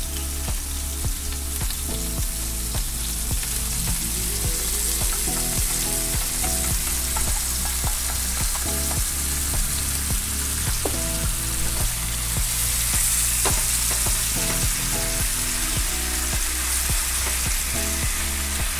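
King crab meat frying in oil in a nonstick pan, sizzling steadily while a thick glaze sauce is poured over it and the pieces are turned with chopsticks. The sizzle grows briefly louder about two-thirds of the way through.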